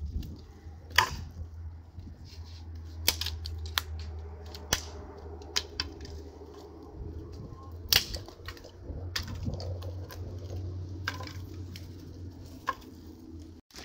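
Dry sticks and twigs being snapped and handled by hand: a series of sharp, irregular cracks, the loudest about a second in and about eight seconds in, over a steady low hum.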